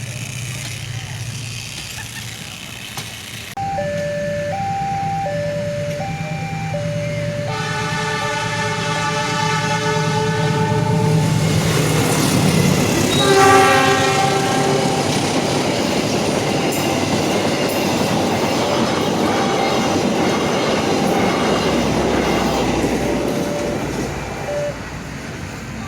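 A level-crossing alarm chimes in two alternating tones. A train horn sounds a long blast, then a shorter second one. The train then passes with a long, loud rush of wheels on the rails, peaking about halfway through, before the crossing alarm comes through again near the end.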